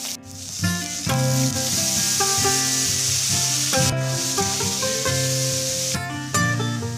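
Hot oil sizzling in a wok as green chillies and curry leaves fry, then diced vegetable pieces scraped and stirred with a spatula in the oil, under instrumental background music with a stepping melody.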